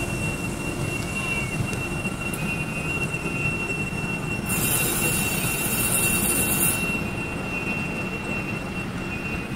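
Wine-red and beige DB passenger coaches rolling past on the rails, a steady rumble of wheels and running gear under a thin, steady high-pitched wheel squeal. About halfway through a loud high hiss rises over it for about two seconds.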